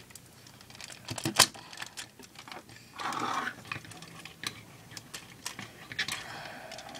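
Plastic parts of a Transformers Bumblebee action figure clicking and snapping as they are folded and pushed into place by hand: a run of small irregular clicks, with a sharper snap about a second and a half in and a brief rustle around three seconds in.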